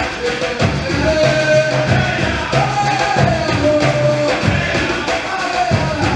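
Percussion ensemble playing a steady drum groove with repeated strokes, while voices sing held notes over it.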